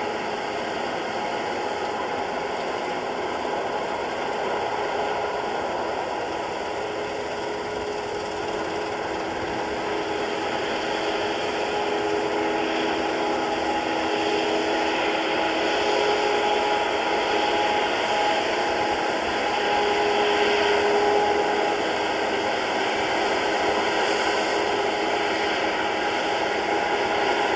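Cat Lexion combine harvester cutting wheat: a steady whirring hiss of its engine and threshing machinery, with faint whining tones that come and go. It grows a little louder in the second half.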